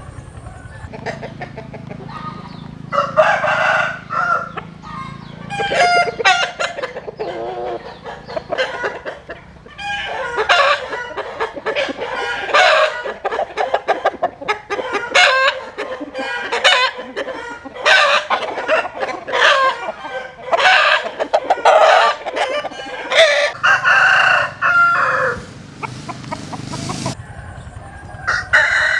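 Gà nòi roosters (Vietnamese fighting-cock breed) crowing again and again, with clucking between the crows. The calls come thick and fast through most of it.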